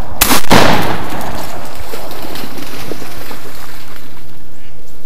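A single shotgun shot from a Browning A5 semi-automatic, fired about a quarter second in, its report echoing and dying away over about a second.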